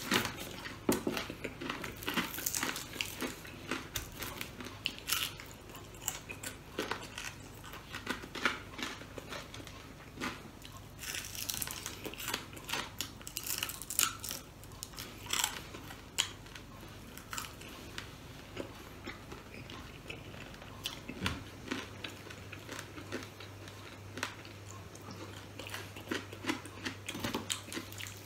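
Close-up eating of crispy fried chicken by hand: repeated crunchy bites and chewing, with the crackle of the crisp skin and meat being torn apart.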